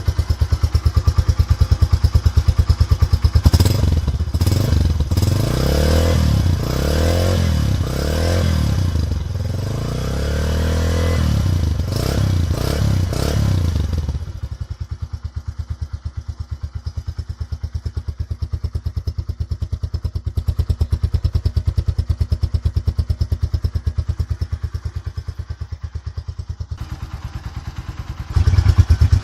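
A 125 cc single-cylinder motorcycle engine idling, then revved up and let fall back several times in quick succession before settling to a quieter, steady idle. It grows louder again near the end.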